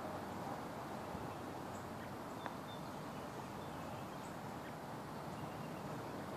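Faint steady outdoor background noise, with a single soft click about two and a half seconds in.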